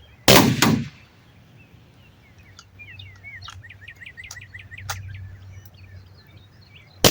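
Two sharp shots from a compressed-air Umarex T4e HDS 68 .68-calibre double-barrel less-lethal shotgun: one a moment after the start and one at the very end, each with a brief tail. Birds chirp in between.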